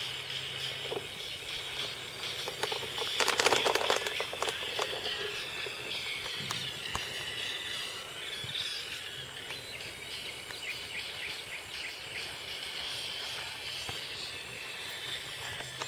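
Outdoor ambience: a steady high-pitched insect chorus, with a short burst of crackling rustle about three seconds in.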